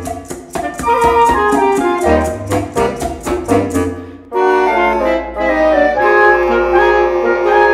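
Chamber woodwind octet (flute, clarinet, alto and tenor saxophones, bass clarinet and bassoon) playing a Latin-style arrangement, with congas and hand percussion keeping a quick even pulse of about four or five strokes a second. About four seconds in, the percussion drops out and the winds carry on in smoother, held notes.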